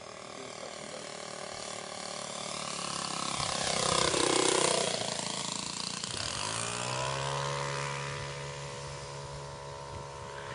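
Saito 180 four-stroke engine of a 1/5-scale Pica Waco RC biplane in a low flyby. It grows louder to a peak about four seconds in, drops in pitch as it passes, then runs on steadier and fainter as it moves away.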